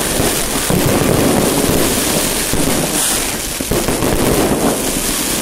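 Fireworks display going off in a dense, continuous run of bangs and crackles.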